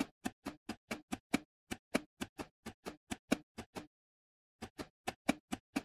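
Keys of a simulated Enigma I cipher machine pressed one after another, a quick run of sharp mechanical clicks about four a second, each keystroke enciphering one letter of the plaintext. The clicks stop briefly about four seconds in, then carry on.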